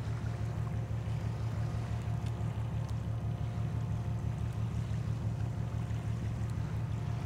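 Steady low throbbing drone of a large ship's diesel machinery, with a few faint steady tones above it.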